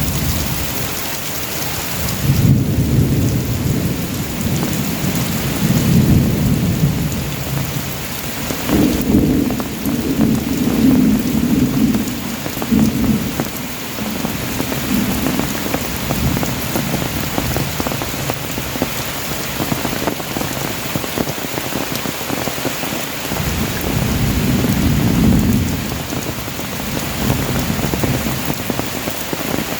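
Extreme heavy rain pouring down in a steady, dense hiss. Low rumbles swell up under it several times, near the start, around the middle of the first half, and again near the end.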